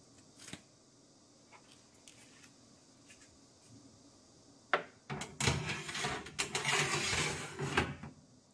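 Metal food tray sliding into an oven's stainless steel side rails. A sharp clink about five seconds in, then about three seconds of metal scraping and rattling as the tray runs along the rails.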